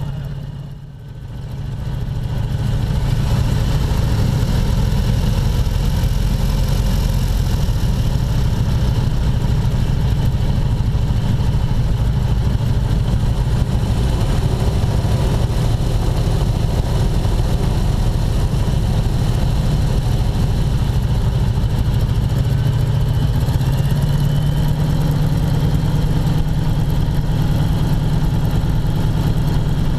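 Ford Tri-Motor's three radial engines running at low power during taxi, heard from inside the cockpit as a steady low drone. The sound dips briefly about a second in, and the engine note rises a little about 24 seconds in.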